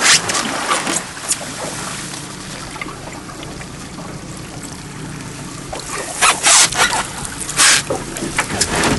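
Water splashing and trickling as a hooked coalfish is brought up to the boat, with sharp splashes at the start and again about six to eight seconds in, over a steady low hum.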